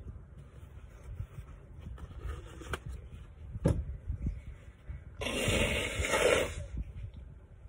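A person blowing their nose into a tissue: one loud blow of about a second and a half, a little after halfway. It follows some faint tissue rustling and a couple of soft knocks.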